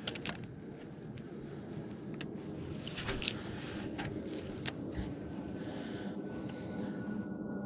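Bow-mounted electric trolling motor holding the bass boat with a steady low hum, a faint thin whine joining about five seconds in. A few light clicks and taps come from the rod and baitcasting reel being handled.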